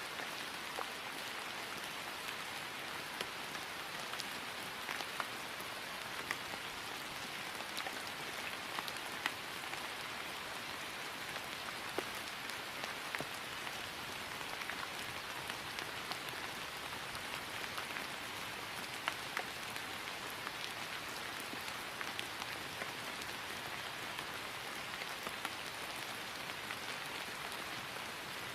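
Steady rain falling on grass, an even hiss with the scattered ticks of individual drops.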